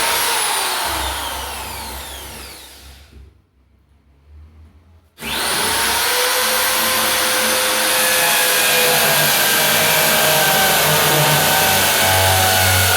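Britânia BFU01 electric drill running, then let off and spinning down to a stop within about three seconds. About two seconds later it starts again with a quick rising whine and runs on steadily.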